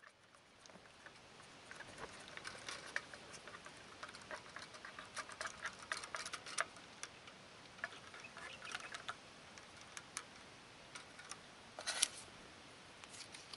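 A wooden stirrer clicking and scraping against the inside of a metal camping mug as a drink is stirred: a run of small, quick ticks, with a louder clatter about twelve seconds in.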